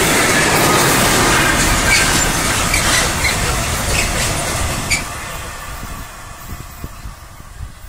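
Freight train rolling past, its wagons' wheels running on the rails with brief squeals and clicks. The noise fades away from about five seconds in.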